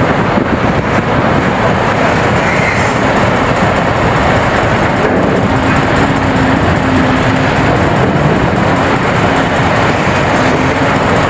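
Heavy mining machinery running steadily: a large LiuGong hydraulic excavator's diesel engine and hydraulics working as it digs rock and loads a dump truck.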